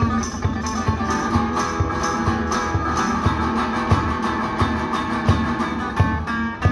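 Guitar music with a steady beat: plucked and strummed guitar over even low thumps.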